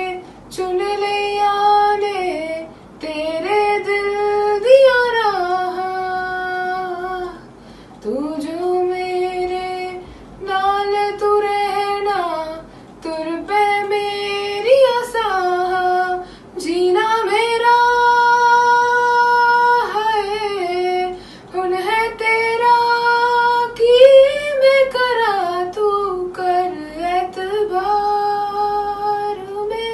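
A woman singing solo and unaccompanied, in phrases of long held notes with vibrato, with short pauses for breath between phrases.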